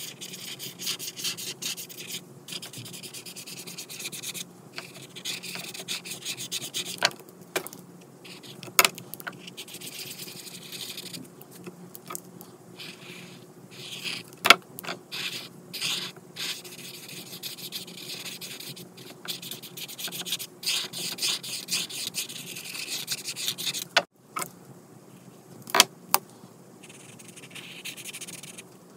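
Ohuhu brush marker's felt brush tip rubbing on coloring-book paper in runs of quick back-and-forth strokes with short pauses, and a few sharp ticks as the tip is set down or lifted.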